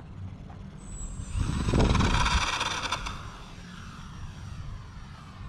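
Electric motor and propeller of a Volantex P-51D Mustang RC warbird whining as it flies close past, loudest about two seconds in, then dropping in pitch and fading as it moves away. Wind rumble on the microphone underneath.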